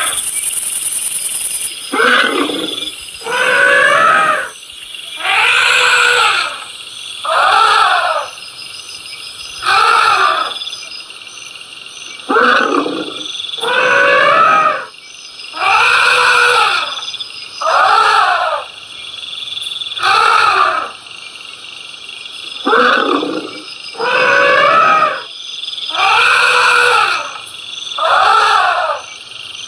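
An animal calling over and over, about one call every two seconds, each call about a second long and rising then falling in pitch.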